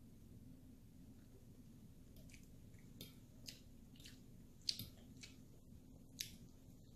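Quiet eating sounds: chewing, with several light clicks of a fork against a plate from about two seconds in, over a low steady hum.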